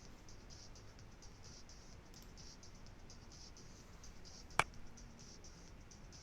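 Quiet room tone with a faint, rapidly pulsing high chirring throughout, and one sharp click about four and a half seconds in.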